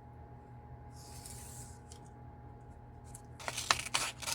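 A sheet of paper being handled at a workbench: a soft stroke across it about a second in, then crisp rustling and crackling from about three and a half seconds.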